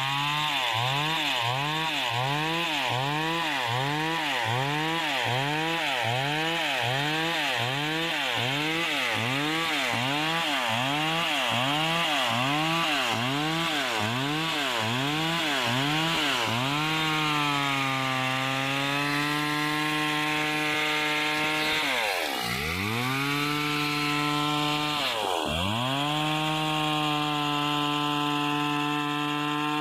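Stihl chainsaw ripping lengthwise through a wooden plank. For much of the time its engine pitch rises and falls in an even rhythm, about one and a half times a second, as the saw is worked into the cut. It then runs steadily, and in the last seconds bogs down sharply under the load and picks up again a few times.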